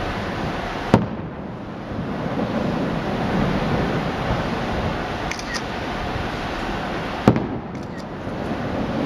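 Aerial firework shells bursting with two sharp bangs, one about a second in and another about six seconds later, over a steady rushing background noise.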